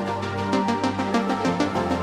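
Background music: electronic track with a steady fast beat over sustained synth notes.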